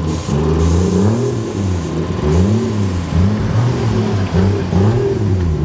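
Mark IV Toyota Supra's inline-six engine being blipped over and over, the revs rising and falling about once or twice a second, as the car pulls out.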